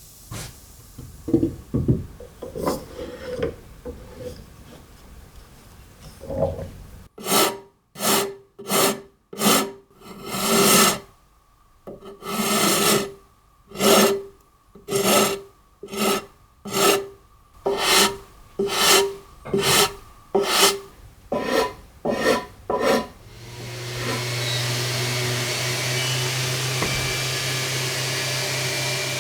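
A few knocks of wood being handled, then a hand tool worked back and forth on wood in about sixteen long, even strokes, roughly one a second. Near the end an electric power tool starts and runs steadily.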